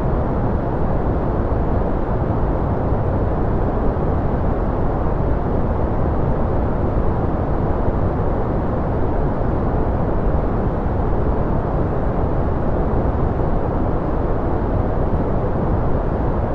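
Continuous artificial noise of the white-noise kind, steady and unchanging, weighted toward low pitches so it sounds like a deep, dull rushing hiss rather than a bright one.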